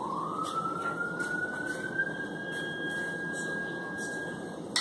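A single siren-like tone glides upward over about a second and a half, then holds steady for about three seconds before stopping shortly before the end. A few light clinks of a utensil against the foil pan and plate sound now and then.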